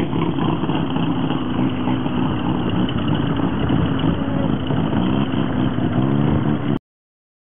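Turbocharged Mazda two-rotor rotary engine of a homebuilt propeller aircraft running as the plane rolls along the runway, its pitch shifting up and down. The sound cuts off abruptly near the end.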